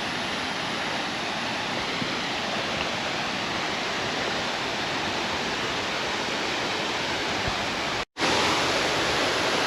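Steady rushing of a waterfall, an even roar of falling water. It cuts out for a split second about eight seconds in, then returns slightly louder.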